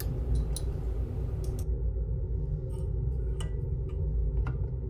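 A few light metallic clicks from the linkage and closed-position switch of a Boeing 747 high pressure shutoff valve as it is pushed closed by hand, over a steady low hum. The valve will not reach the fully closed position on its own; it is being helped there to actuate the switch, which points to a weak closing spring or play on the butterfly valve's axle.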